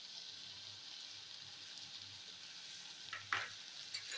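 Potato cubes and onions frying in oil in a wok, a faint steady sizzle. About three seconds in, a spatula briefly scrapes the pan a couple of times.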